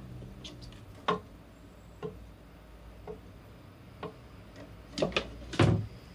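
Light clicks about once a second, then two heavier knocks near the end as the hinged 2.3 mm black steel top plate of a home-made router table is lowered shut onto its frame, the second one the loudest with a dull thud.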